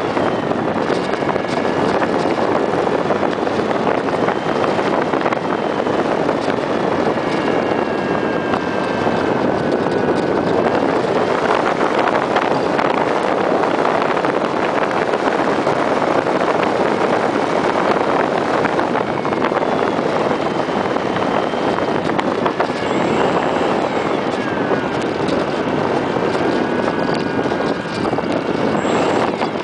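Onboard sound of a Parkzone T-28 RC plane in flight: heavy wind rush over the camera microphone with the whine of its brushless electric motor (Hobbyking MTN on 4S), the whine gliding up and down with throttle. The level eases a little near the end.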